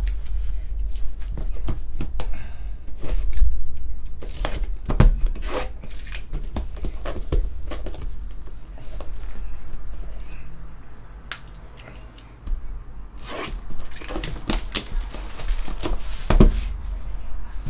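Plastic shrink wrap being torn and crinkled off a sealed trading card box, with scattered sharp taps and rustles as the cardboard box is handled.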